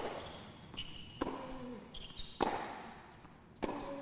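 Tennis rally: four sharp racket strikes on the ball, evenly spaced about 1.2 s apart, with brief high squeaks of tennis shoes on the hard court between shots.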